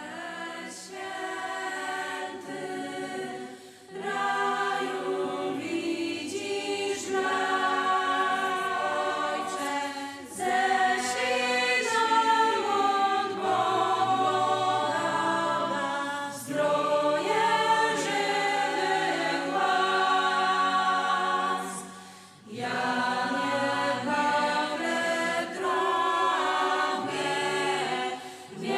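A choir of young female voices singing a slow religious song in lines of about six seconds, with a brief pause between each line.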